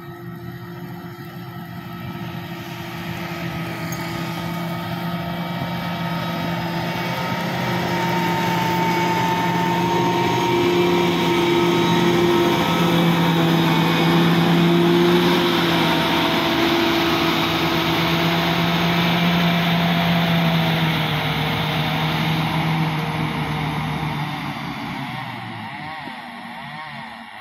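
Motor grader's diesel engine running as the grader drives close past, growing louder to a peak about halfway and fading near the end.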